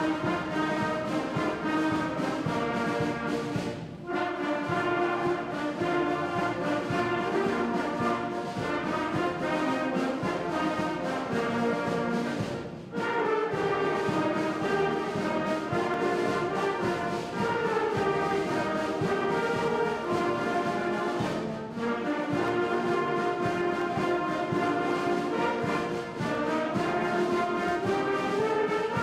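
Student concert band of clarinets, flutes, saxophones and brass playing held chords, with brief breaks between phrases about 4, 13 and 22 seconds in.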